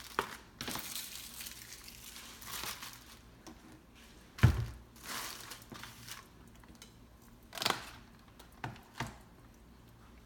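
Plastic food packaging crinkling as it is handled and pushed aside on a table, with a few knocks, the loudest about halfway through.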